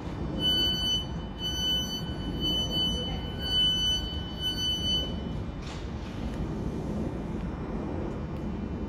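Train door-closing warning: a high electronic beep repeated about once a second, five times. A short hiss follows about a second after the beeps stop, over the low rumble of the standing electric train.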